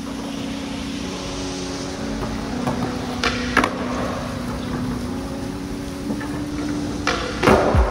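Skateboard wheels rolling on concrete with a steady low rumble, broken twice by pairs of sharp clacks from the board popping and landing, once about three seconds in and again near the end.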